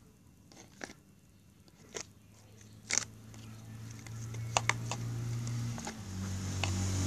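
Homemade glue-and-detergent slime being worked by hand, giving a few scattered sticky clicks and pops. A low steady hum comes in about halfway, with a hiss near the end.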